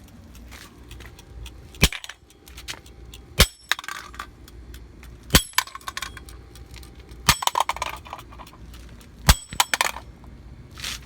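A kitchen timer being smashed: five sharp impacts about two seconds apart, each with a brief high ring, with smaller clatters after the last two.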